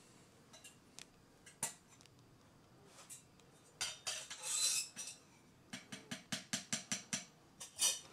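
Close handling noise from hands working with small objects: scattered clicks, a short rustling hiss about four seconds in, then a quick run of about a dozen light taps.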